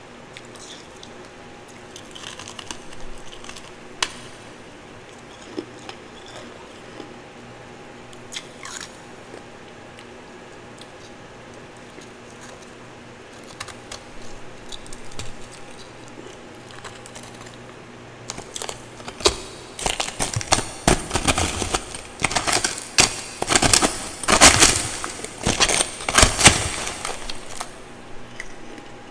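Refrozen powdery ice being handled and eaten: scattered soft crackles and clicks at first, then from about two-thirds in a dense run of loud, crisp crunching as mouthfuls are bitten and chewed.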